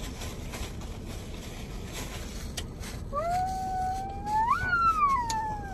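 A young child's high-pitched, drawn-out vocal sound, starting about three seconds in: the pitch climbs slowly, jumps up to a peak, then slides down. A low steady hum runs underneath.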